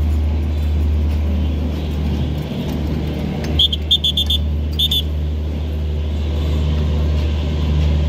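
Steady low drone of a Bangladesh Railway intercity train's diesel engine running. A few short, high-pitched chirps come about halfway through.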